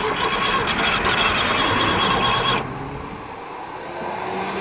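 Starter motor cranking the ZAZ-968M's air-cooled V4 engine, a steady whirring with a whine, for about two and a half seconds before it stops suddenly; a quieter stretch follows.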